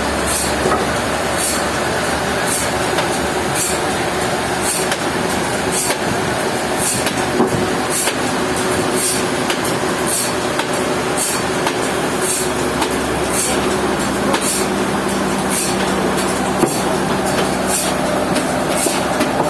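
Sawmill machinery running steadily with a low hum, and a high hiss that repeats about one and a half times a second.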